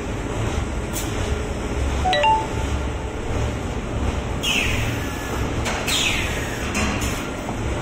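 High-speed automatic carton folder-gluer running in production: a steady mechanical rumble with an uneven low throb and scattered clicks. Two high squeals slide down in pitch in the second half.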